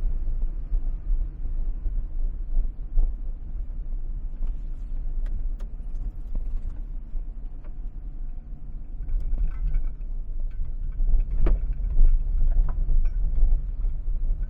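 Typhoon-force wind buffeting the microphone: a heavy, gusting rumble that swells louder about two-thirds of the way through, with scattered sharp clicks and knocks.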